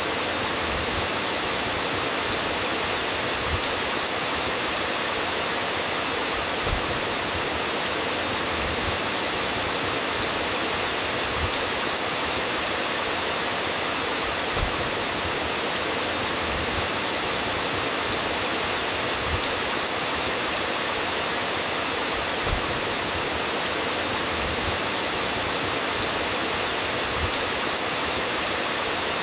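Steady heavy rainfall, a dense even hiss, with brief low thumps every few seconds.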